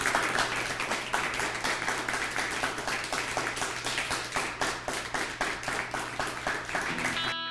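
Small audience applauding, a dense steady patter of many hands clapping that cuts off abruptly near the end as electric guitar music comes in.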